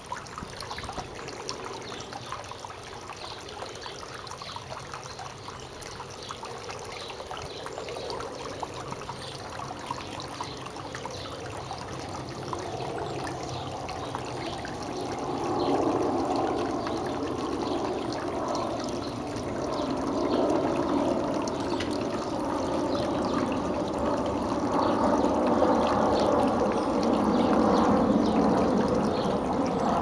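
Water trickling and splashing down the stones of a small rock garden fountain, a steady trickle that grows louder about halfway through.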